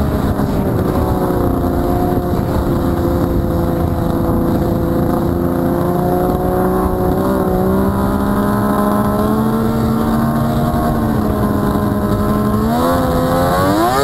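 1998 Arctic Cat Thundercat 1000 snowmobile's three-cylinder two-stroke engine running at a steady cruising speed, its pitch drifting only slightly, then rising sharply as the throttle is opened near the end.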